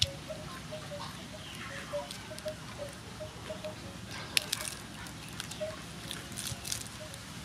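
Crisp lettuce leaves crinkling and snapping as a hand wraps them around a slice of boiled beef kidney, with sharp little crackles, the loudest about four seconds in and a cluster near the end. Faint short repeated peeps sound in the background.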